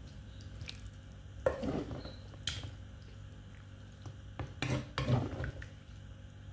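A spoon stirring a plate of wet pounded noodle salad, with a few sharp clicks of the spoon against the plate, about one and a half and two and a half seconds in and twice near the end.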